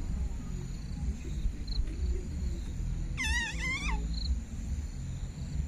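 A bird gives one wavering call lasting about a second, about three seconds in, with faint short high chirps from small birds before and after it. A low rumble of wind on the microphone runs underneath.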